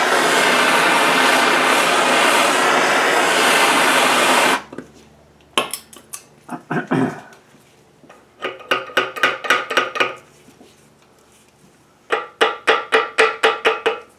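Heat gun blowing steadily as it warms old, hardened grease to soften it, cutting off suddenly about four and a half seconds in. After that, plucked-string music of guitar or banjo plays in short runs of quick notes.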